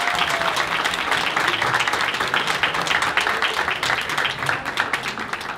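Audience and people on stage applauding: many hands clapping in a dense, steady patter that starts to thin near the end.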